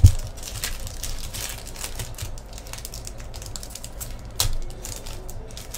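A run of light, quick clicks and taps, with a low thump at the start and a sharper click about four and a half seconds in.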